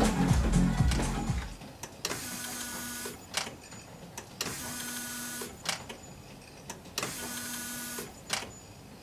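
Music plays, then cuts off about a second and a half in. After that a small electric motor whirs for about a second at a time, three times, each run followed by a sharp click.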